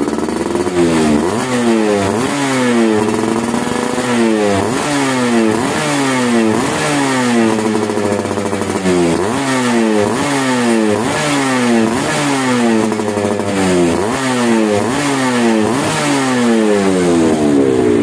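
Yamaha F1ZR's two-stroke single-cylinder engine revved in repeated throttle blips, about one a second, each rising and falling back. It runs through an aftermarket SKR racing muffler freshly repacked with glasswool.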